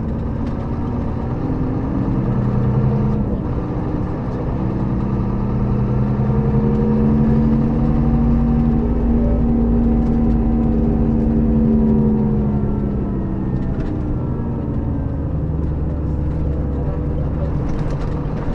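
Scania K400B coach's rear-mounted six-cylinder diesel engine running under way, its note rising slowly for several seconds, holding, then falling back about two-thirds of the way through.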